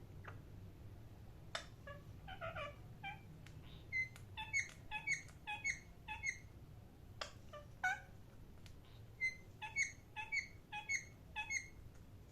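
Parrot chirping in quick runs of short, sharp calls, a few each second, with a steady low hum underneath.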